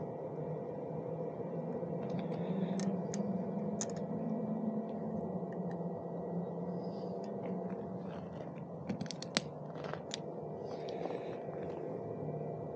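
Light clicks and taps of a headlight bracket and small hand tools being handled while the headlight is fitted and angled on an electric bike's handlebar stem. The clicks come in two clusters, a few seconds in and again past the middle, over a steady low background hum.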